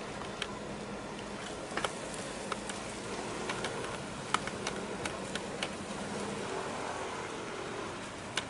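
Low, steady hum of a large offshore vessel's machinery carried across harbour water, fading about two thirds of the way in, under an even wash of background noise. A dozen or so small, sharp clicks are scattered through it.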